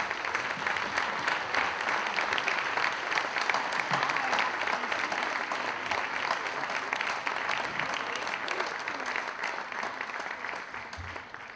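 Audience applauding, building up at the start and dying away near the end.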